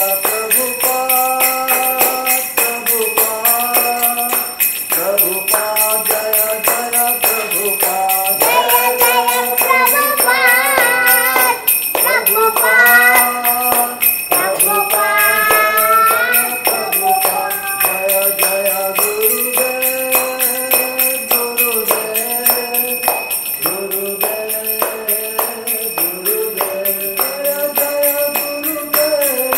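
Devotional arati music: a melody that climbs to higher, wavering notes in the middle, over continuous jingling metal percussion and a steady beat.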